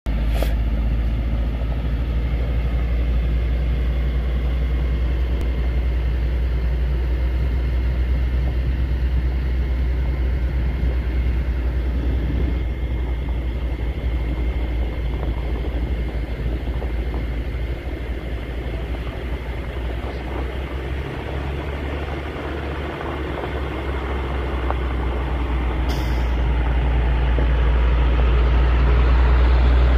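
Caterpillar C7 diesel engine of a Chevrolet C8500 truck idling steadily with a deep, even drone, growing louder over the last few seconds.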